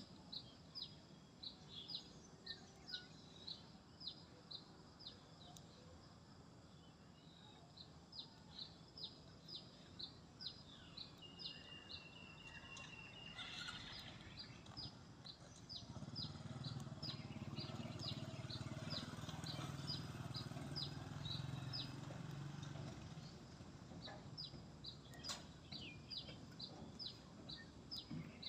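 A bird chirping over and over, short high chirps at about two a second, with a low rumble in the background through the middle stretch.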